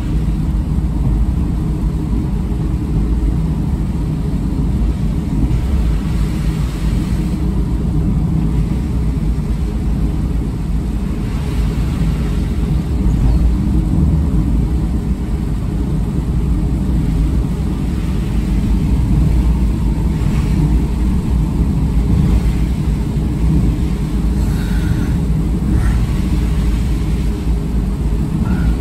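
Steady low rumble of a car driving on a wet road, engine and tyre noise heard inside the cabin.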